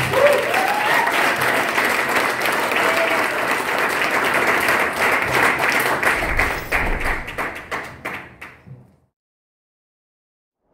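Audience applauding, with a voice or two calling out briefly near the start; the applause fades out about nine seconds in.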